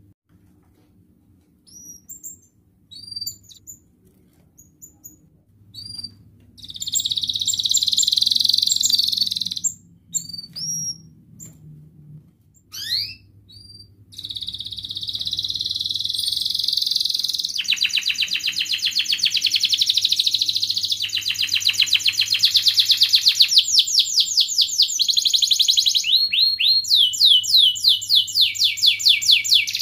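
Domestic canary singing: first separate short, high upswept chirps, then a brief fast trill, and from about halfway an unbroken song of rolls, very fast repeated notes and falling sweeps.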